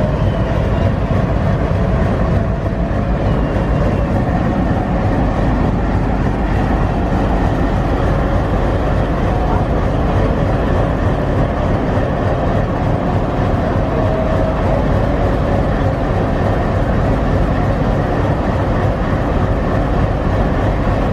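A train in motion: a loud, steady rumble of wheels and carriages on the rails that runs on without a break.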